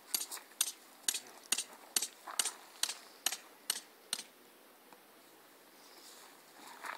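Footsteps on a gravelly dirt surface, about two steps a second, stopping about four seconds in.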